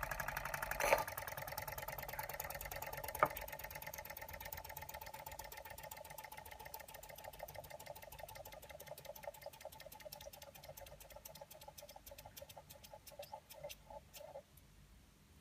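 Replica Ernst Plank tripod toy steam engine running down: its rapid rhythmic beat slows and fades until it stops about a second before the end. Two sharp knocks about one and three seconds in are the loudest sounds.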